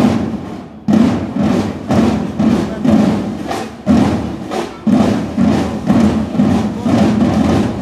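Marching drums beating a steady parade rhythm, with a heavy accent about once a second and quicker strokes between.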